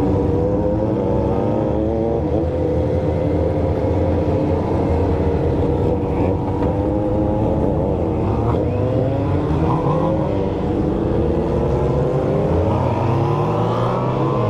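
Several sport motorcycles with straight-piped four-into-one exhausts idling and revving together, their engine notes overlapping, with revs climbing near the end.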